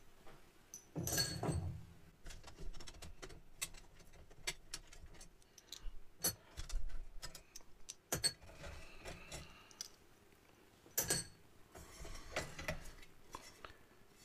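Light, irregular metal clicks and rattles of small hardware being taken off a steel keybed plate: screws and brass brackets coming loose and being handled, with a few louder clacks about a second in, around eight seconds and around eleven seconds.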